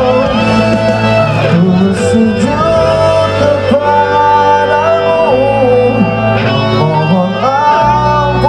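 A man singing a ballad into a microphone with long held notes, over a live band with guitar, amplified through a loudspeaker system.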